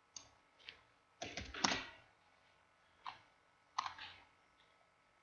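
Computer mouse and keyboard clicks: a handful of separate sharp clicks, with a quick run of several keystrokes about a second in.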